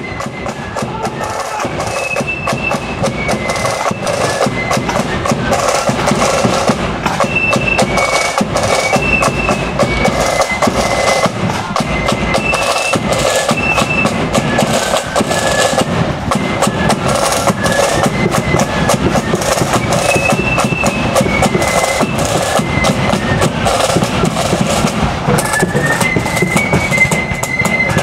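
A marching flute band playing: massed snare drums rattle out a rapid, driving beat under a high flute melody, growing louder over the first few seconds as the band approaches.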